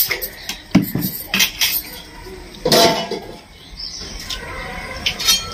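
People eating biryani with their hands: chewing and lip-smacking with a scatter of short clicks and light clinks against a steel plate, and one louder burst about three seconds in.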